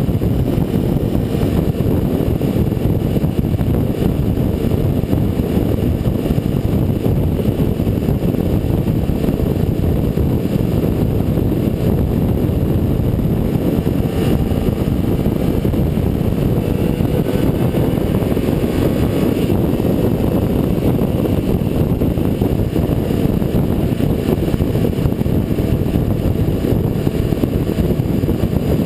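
Steady wind rush buffeting the microphone at highway speed, with a 2005 Honda CBR600 F4i's inline-four engine running underneath at a constant cruise.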